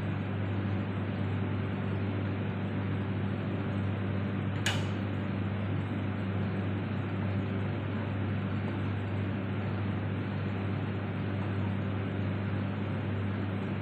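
A steady mechanical hum with a constant noise under it, with one sharp click nearly five seconds in.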